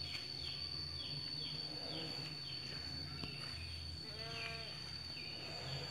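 A goat bleats once, a short pitched call about four seconds in, over a steady high whine and repeated short, high, falling chirps.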